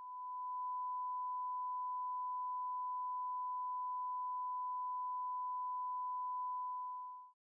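Steady thousand-cycle reference test tone: one pure, unwavering beep of the bars-and-tone leader, held for about seven seconds, then cut off sharply near the end.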